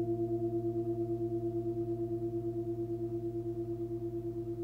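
A 24 cm Nepalese singing bowl, fundamental about 111 Hz (A), ringing with a low hum and several higher overtones. The tone pulses with a fast, even wobble and slowly fades.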